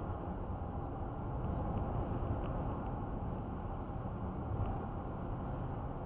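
Steady tyre and road noise with engine hum inside a car's cabin cruising at about 60 mph on a highway, with a few faint ticks.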